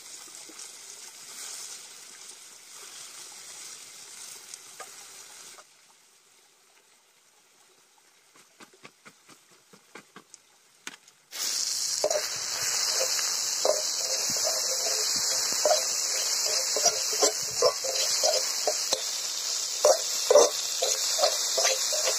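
Sliced onions and tomato pieces sizzling in oil in a steel kadai, with the knife blade knocking and scraping against the pan as it stirs. The sizzle comes in loud about halfway through, after a quieter stretch of small clicks.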